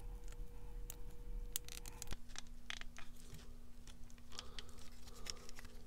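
Faint, irregular plastic clicks and handling of a small plastic mini quadcopter as its battery lead is plugged into its connector by hand.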